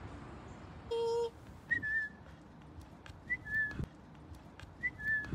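A short two-note whistle, a quick rising note then a slightly lower held one, repeated three times about a second and a half apart, over faint outdoor background. A short pitched beep sounds about a second in.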